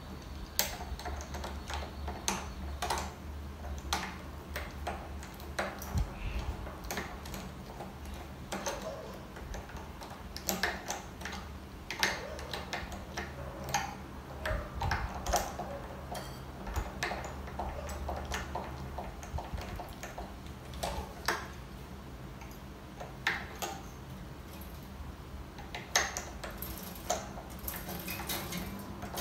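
Irregular small metallic ticks and clicks of steel guitar strings and tuning machines as a new string is threaded onto a tuning post and wound by hand on a 12-string acoustic guitar's headstock.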